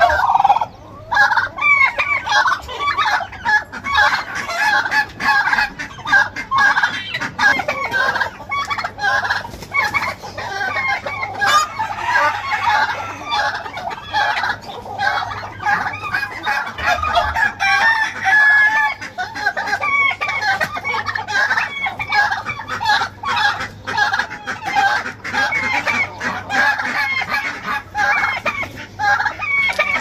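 A flock of domestic chickens clucking without pause, with roosters crowing among the many overlapping calls.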